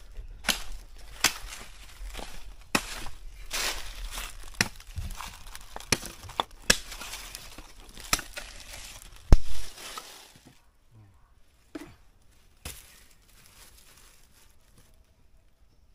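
Dry leaf litter crunching and rustling with scattered clicks and knocks as the eggs are handled and set into a coconut-shell bowl. A sharp knock about nine seconds in is the loudest; after about ten seconds only a few faint clicks remain.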